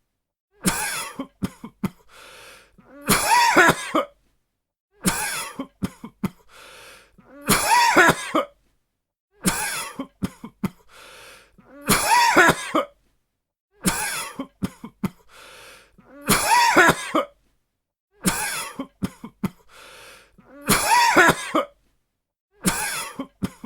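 A person coughing in repeated fits, about five in all, each about four and a half seconds apart. Each fit is a loud hoarse cough, then a few short coughs and a breath in, then a brief pause.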